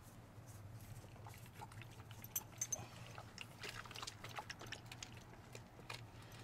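Great Dane snuffling and lapping at a water bowl: soft, irregular wet clicks and smacks, busiest in the second half, over a steady low hum.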